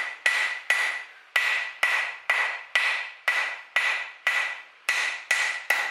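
Blacksmith's hammer striking hot square steel bar on an anvil, about two blows a second in a steady rhythm, each with a bright ring. The blows are flattening the bar's end into the blade of a leaf.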